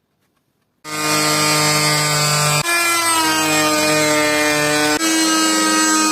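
An electric power tool motor running steadily with a high whine, in three stretches joined by abrupt cuts. The pitch shifts slightly at each cut.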